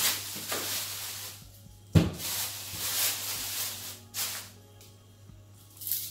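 Thin plastic produce bag rustling and crinkling in bursts as red onions are taken out of it, with a sharp knock about two seconds in.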